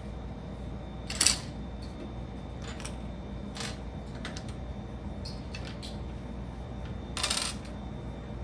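Small plastic Lego pieces clicking and clattering as they are handled and sorted: a sharp clack about a second in, a few lighter clicks after it, and a longer clatter near the end.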